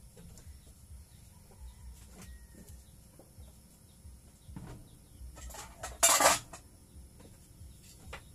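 A short, loud clatter of kitchenware about six seconds in, with a few faint clinks elsewhere, over a low steady rumble.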